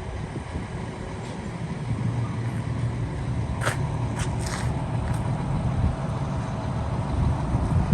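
Liebherr R946 long-reach excavator's diesel engine running steadily, a little louder about two seconds in. A few short sharp clicks come around the middle.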